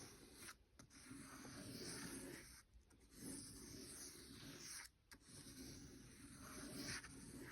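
Faint scratching of a compass's pencil being swung round to draw a circle, in several strokes of about two seconds each with short breaks between them.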